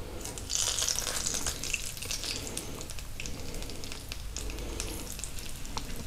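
Hot melted coconut oil poured from a small saucepan onto moist fish fillets, sizzling with many small crackles that start about half a second in.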